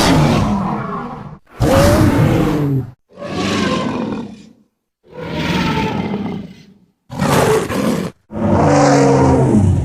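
A series of Tyrannosaurus rex roar sound effects, about six separate roars of one to two seconds each, with short silent gaps between them.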